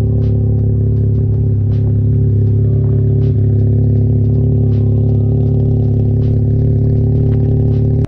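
Mazda 13B rotary engine in a 1979 Mazda 323 hatchback idling steadily with stock exhaust ports, an even drone with faint scattered ticks. It cuts off abruptly at the very end.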